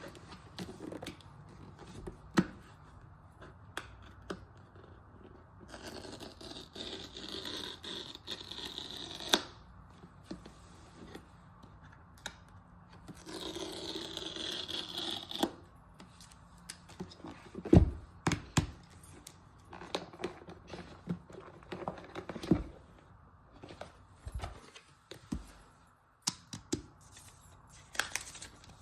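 Unboxing an iPad Pro: packaging being torn open in two long stretches of a few seconds each, with scattered clicks, taps and scrapes as the box is handled.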